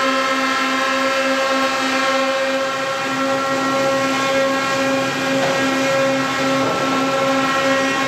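Sawmill machinery running: a steady mechanical hum with several overtones and a slight regular pulsing, over a general machine noise.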